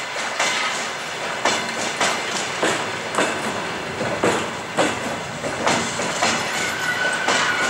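Steel wheels of double-deck passenger coaches clacking over rail joints as the arriving train rolls past, in irregular sharp clacks over a steady rumble. A thin, steady high squeal comes in near the end.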